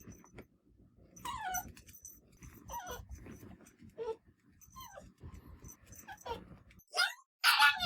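Mame-shiba (small Shiba Inu) giving a series of short, high whining cries, several sliding down in pitch, with the loudest two near the end.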